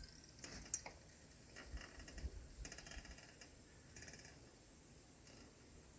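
Faint clicks and short scratchy sounds of a silicone caulking gun being worked, with one sharp click a little under a second in; quieter in the second half.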